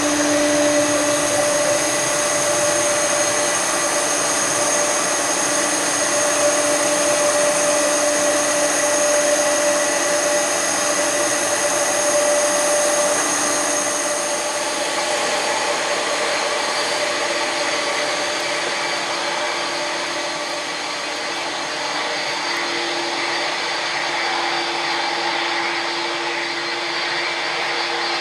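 Air India Boeing 747-400's four turbofan engines running at low power while taxiing: a steady jet whine with several held tones. About halfway through, the whine changes to a different set of tones.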